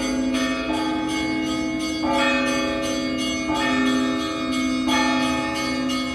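Russian Orthodox church bells ringing from a belfry: a deep bell hums steadily underneath while groups of smaller bells are struck together about every second and a half.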